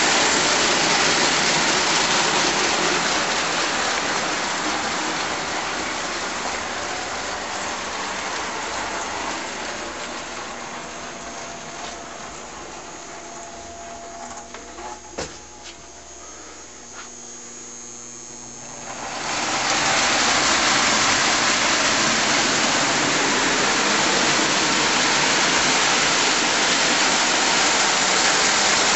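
Two Boucher 2100 standard gauge tinplate locomotives pulling a freight train on tinplate track: a steady rushing rattle of motors, gears and wheels. It fades over the first half as the train draws away, with a few sharp clicks near the quietest point, then swells suddenly back to full about two-thirds in as the train comes close again.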